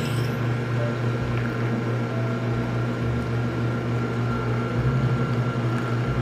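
Espresso machine pump running steadily as a shot is pulled, a continuous low hum.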